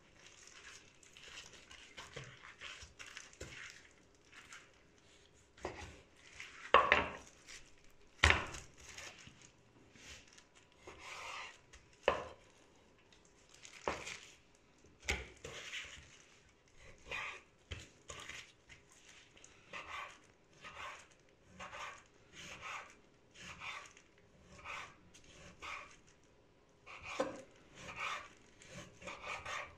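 Chef's knife slicing raw beef into thin pieces on a wooden cutting board: each stroke is a short cutting sound ending in a tap of the blade on the board. Several louder knocks come in the first half, then the cuts settle into an even rhythm of about one a second.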